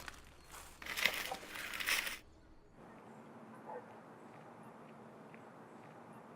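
About two seconds of rustling, crunching noise that cuts off abruptly, followed by faint steady room tone.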